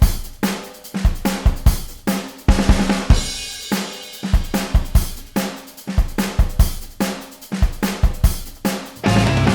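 Background music: a rock drum-kit beat with kick, snare and cymbals. Near the end a fuller band sound with held bass notes comes in.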